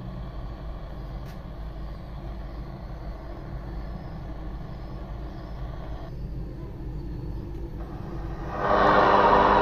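Portable shortwave radio tuned to All India Radio on 9950 kHz, giving a weak, noisy signal: a steady hiss of static over a low hum. Near the end the audio jumps much louder into music from the broadcast.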